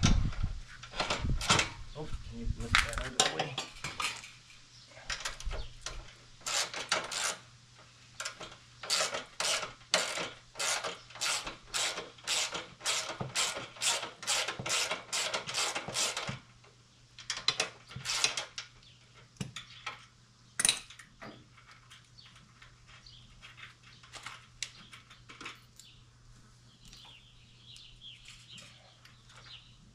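Hand tools clinking and knocking on metal parts during mini bike assembly. After a few irregular knocks comes a steady run of about two sharp metallic clicks a second lasting roughly ten seconds, then only occasional clinks.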